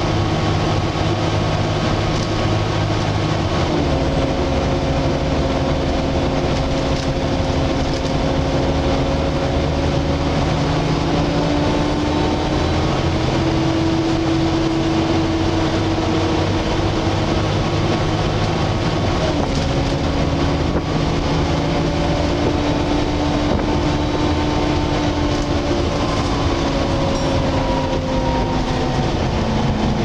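A Volvo B7TL double-decker bus on the move, heard from inside: engine and running noise topped by the loud whine of its cooling fan, the 'loud hoover'. Several steady whining tones drop in pitch about three seconds in, again about two-thirds of the way through, and near the end.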